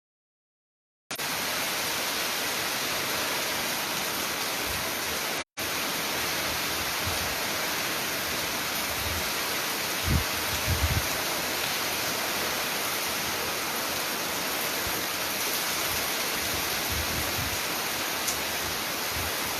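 Heavy rain falling steadily, a dense even hiss. The sound is cut to silence for about the first second and drops out for an instant about five and a half seconds in, and a few low thumps come around ten seconds in.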